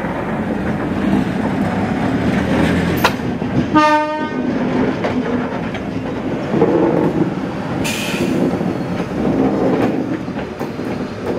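Vintage Sydney electric suburban train, heritage set F1, running past and pulling away: a steady rumble of wheels on the track, with a short horn toot about four seconds in and a brief hiss near eight seconds.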